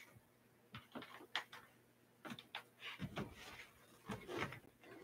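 A string of faint clicks, knocks and rustles from a person moving about a small room and handling things, a little busier in the second half.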